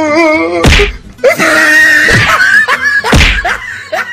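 Young men's voices shouting and screaming in a rough scuffle, with two heavy thumps, one under a second in and another about three seconds in.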